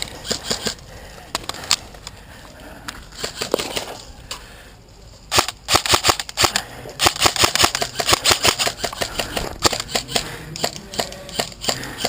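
Airsoft rifles firing: sharp cracks of single shots and quick strings of shots, sparse at first and coming thick and fast from about five seconds in.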